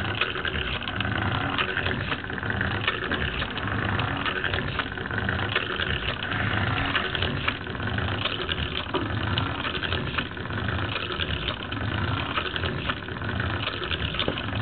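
Lego pneumatic walking beam engine running on compressed air: steady clicking and clattering of its plastic linkages and gears, with a regular pulse about once a second from each stroke of the piston.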